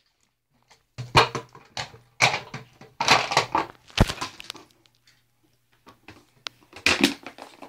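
An empty plastic water bottle crackling and crunching in several irregular bursts as a beagle bites and shakes it.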